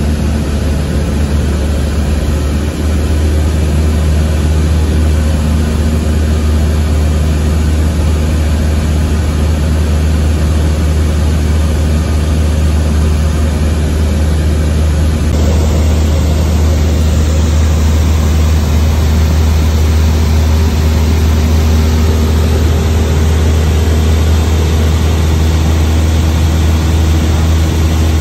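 Cessna 172SP's four-cylinder Lycoming IO-360 engine and propeller droning steadily, heard from inside the cabin in flight.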